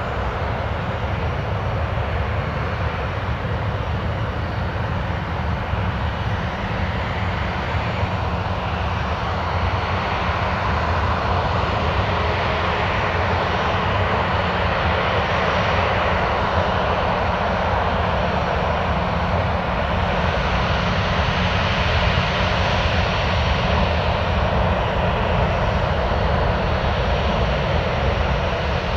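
Ryanair Boeing 737's twin jet engines running at taxi power: a steady jet roar with slow swells as the airliner taxis past.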